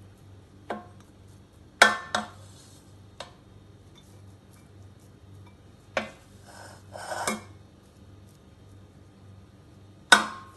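A spatula knocking against a steel cooking pot and a ceramic serving bowl as cooked millet pulao is scooped across: a handful of sharp separate clacks, two close together about two seconds in and a loud one near the end, with a short scrape past the middle.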